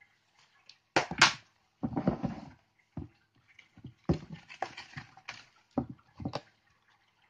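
Cardboard egg-crate pieces and paper rustling and knocking against plastic containers as they are shaken and tipped into a plastic tub, with several sharp knocks between spells of rustling.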